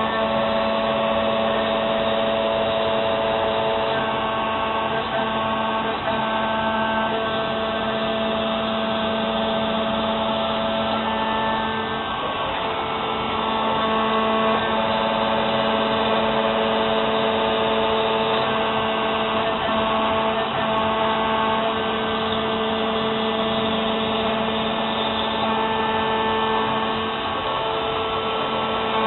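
CNC router spindle running a 1/4-inch solid-carbide O-flute spiral bit through 3/4-inch HDPE plastic. It makes a steady whine of several tones over a hissing cutting noise, which swells and eases a little as the cut moves along.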